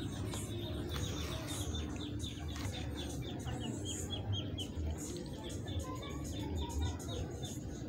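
Ducklings peeping: a continuous run of short, high, falling peeps, several a second, over a low background rumble.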